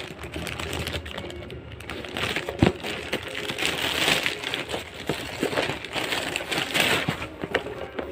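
Irregular light clicking and tapping, like computer buttons or keys being pressed, over a steady hiss. One sharper click comes about two and a half seconds in.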